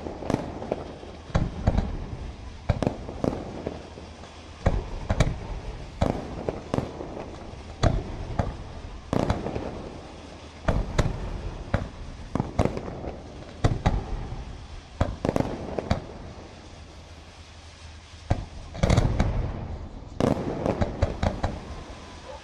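Aerial firework shells bursting one after another, sharp bangs each trailing off in a rumbling echo. After a short lull about two-thirds of the way through comes a denser, louder volley near the end.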